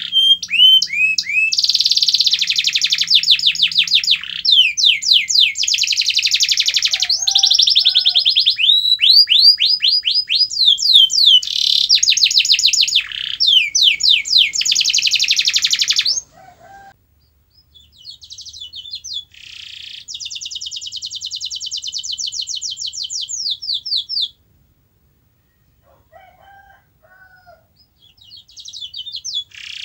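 Domestic canary singing a loud song of rapid trills and rolls. The song breaks off about halfway, then comes one fast, even trill, a few seconds of quiet, and the song starts again near the end.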